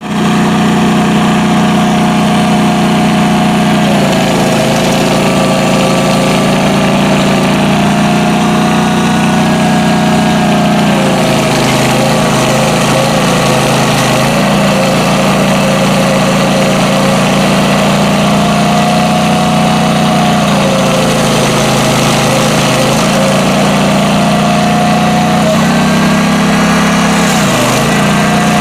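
Toro stump grinder's petrol engine running steadily at high throttle while grinding an oak stump. Its pitch dips slightly every few seconds as the cutter wheel takes load, with a sharper sag near the end.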